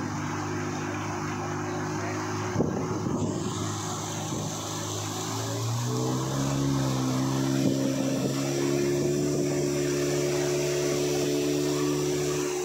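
Motorboat engine running steadily, its pitch rising about five or six seconds in as the boat is opened up to go faster, over the rush of water and wind.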